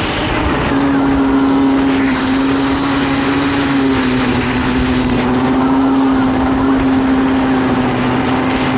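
Comer 50cc two-stroke kart engine running flat out as the kart laps the track. Its note is steady, dipping slightly in pitch about halfway through and climbing back near the end.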